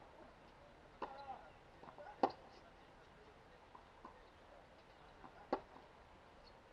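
Tennis rally on a hard court: sharp single pops of the ball off racket strings and court, spaced one to three seconds apart, the loudest about two seconds in and another strong one about five and a half seconds in.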